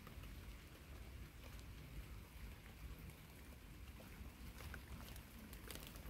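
Near silence: a faint, steady low rumble with scattered light ticks.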